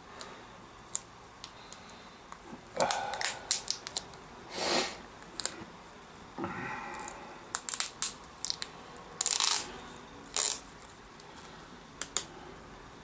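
Adhesive tape being peeled off a laptop LCD panel's display cable in several short rasping pulls, among small clicks and taps of fingers handling the plastic and the screen, with a brief squeak about six and a half seconds in.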